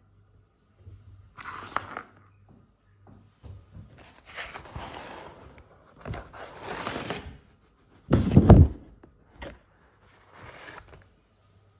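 A run of short rustling and scraping handling noises with quiet gaps between them, and one heavy thump a little past eight seconds in.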